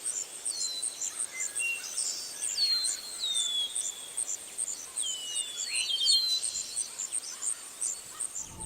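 Birds singing repeated falling whistled notes over an insect's steady high-pitched chirping, about three pulses a second.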